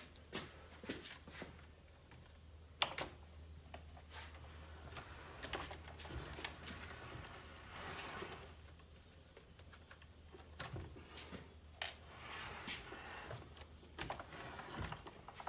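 Scattered small clicks, taps and brief rubbing of plastic parts being handled on a workbench, over a faint steady low hum.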